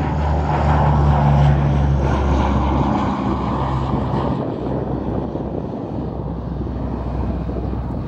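The four turboprop engines and propellers of an Antonov An-12 running as it passes low and climbs away, a steady low drone with a rushing noise over it, loudest about a second in and fading after about four seconds.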